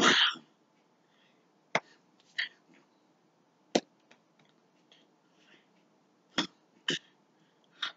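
Hands slapping together and against the body during sign language, six short sharp slaps at uneven spacing, with a breathy puff of air right at the start.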